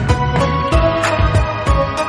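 Bollywood-style background music with sustained melodic tones over a steady percussion beat.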